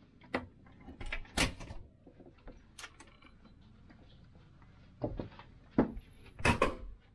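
Ship's cabin door being unlatched and pulled open: sharp handle-and-latch clicks and knocks, then a cluster of louder knocks and thumps near the end as the door is handled again.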